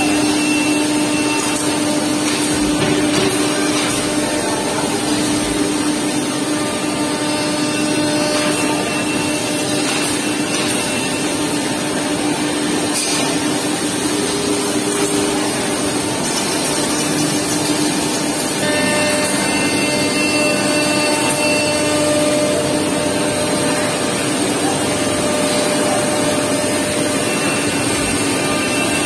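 A Chang Feng five-axis CNC wood router's spindle running and milling a curved wooden workpiece: a steady whine over dense cutting noise.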